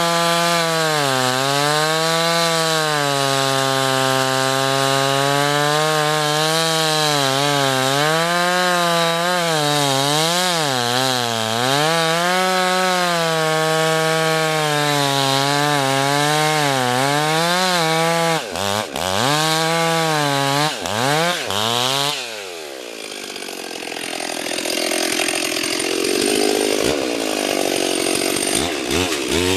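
Stihl chainsaw running at high revs, cutting through poplar wood, its engine pitch wavering as the chain bites. Late on, the throttle is let off and the engine drops to a lower, quieter run, then revs up again at the very end.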